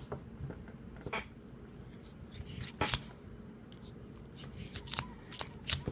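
A cleaning rod with a dry cotton patch being worked through a revolver's cylinder chambers: scattered scrapes and light clicks of the rod against the cylinder, with rustling of the patch and towel.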